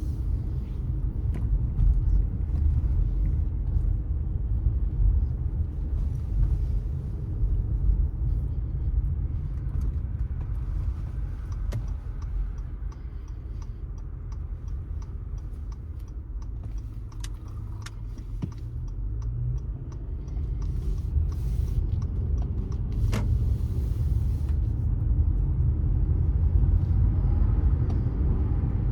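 A car driving along a city street: a steady low rumble of engine and tyres, easing off in the middle and building up again near the end.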